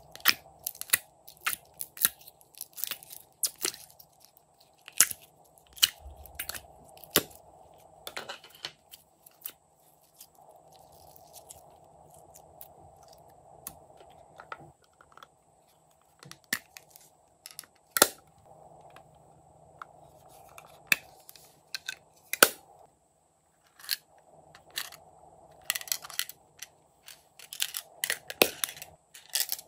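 Irregular crisp crackles, crunches and clicks as frozen slime cubes are pushed out of a plastic ice cube tray, with a few louder sharp snaps and plastic clicks from handling a slime tub near the end.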